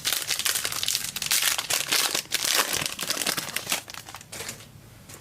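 Plastic trading-card pack wrapper being torn open and crinkled by hand: a dense crackling that dies away near the end.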